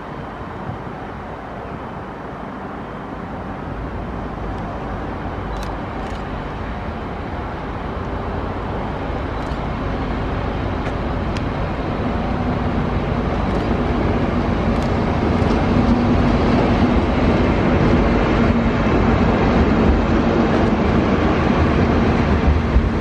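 Freight train of pressure-gas tank wagons hauled by a diesel shunting locomotive rolling past, its rumble growing steadily louder as the wagons draw close. A steady low hum comes in about halfway through, with a few faint ticks.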